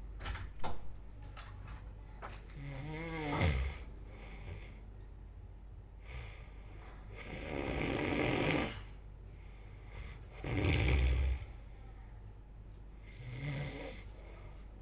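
A person snoring: four snores a few seconds apart, the loudest a low rattle about eleven seconds in. A couple of short clicks come just before the first snore.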